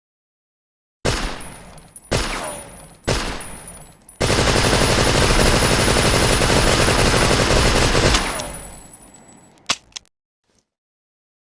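Thompson submachine gun (Tommy gun) firing: three single shots about a second apart, each ringing out, then a continuous rapid-fire burst of about four seconds that fades away in echo. Two short clicks follow near the end.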